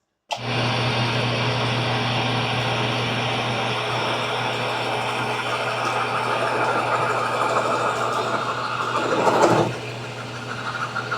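Mill-drill press running steadily with a 1-7/64 inch bit boring into a bowling ball, a low motor hum under the cutting noise. About nine seconds in, the sound briefly grows louder, then drops to a quieter level.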